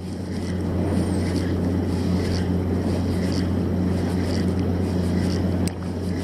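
A steady low hum at a constant pitch, under the faint, regular ticking of an Okuma Azores spinning reel being cranked to retrieve a popper lure.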